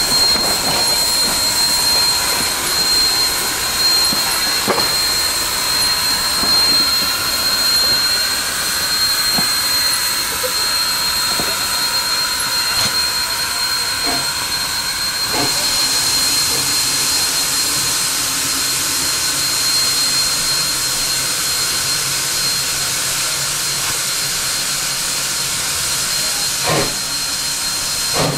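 Sierra Railway No. 3, a 4-6-0 steam locomotive, hissing steam steadily with a thin high whine above it. The hiss grows stronger about halfway through, and a few light knocks come near the end.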